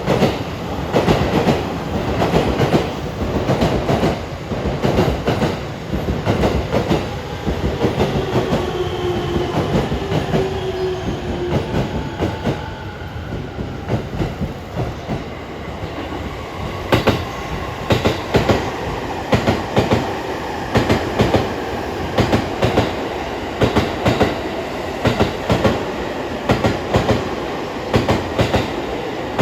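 E257 series 2000 sub-series electric multiple unit passing at speed, its wheels clattering over rail joints in a steady run of clicks. A falling whine sounds partway through.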